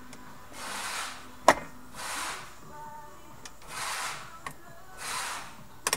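Hand tools and small metal parts clicking against an airsoft AK's receiver during disassembly: one sharp click about one and a half seconds in and a pair of faint clicks near the end, between four soft hissing swells.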